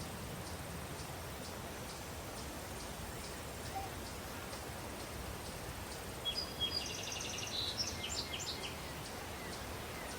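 Daytime countryside ambience: a steady breeze hiss with faint, regular cricket chirps, and a bird singing a short run of chirps and trills about six seconds in.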